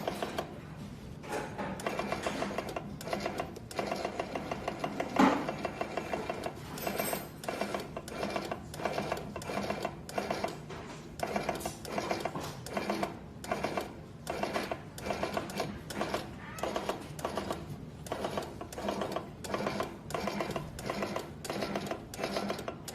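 Automatic mask body feeder and ear-loop welding machine running through its cycle, with mechanical clattering that repeats in an even rhythm, and one sharper knock about five seconds in.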